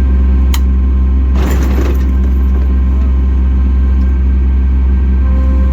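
An engine running steadily with a deep, even hum. A sharp click comes about half a second in, and a short hiss about a second and a half in.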